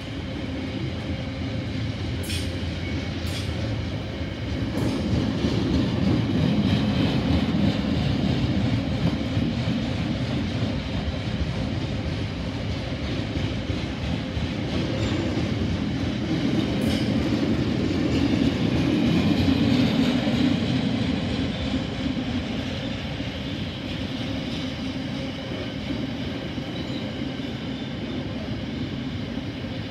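Freight train's open box wagons rolling past: a steady rumble with wheel clatter and a few sharp clicks. The rumble swells twice, at about five seconds in and again just past halfway.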